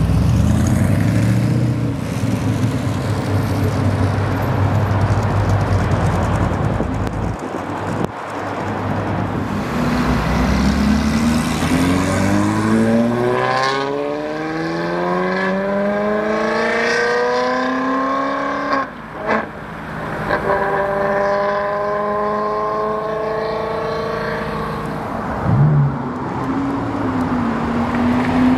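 Supercar engines under hard acceleration, one car after another. First a Lamborghini Countach's V12 pulls away with a low rumble. Then a Ferrari 360's V8 revs up in a long rising wail, upshifts with a brief drop, and holds a high note on the next gear.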